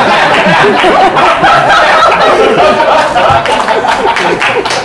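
Audience laughing loudly and at length, many voices at once.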